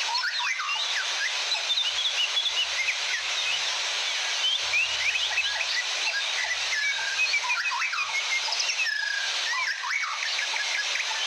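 Several birds chirping and whistling in many quick, short notes, over a steady rushing hiss of falling water from a waterfall.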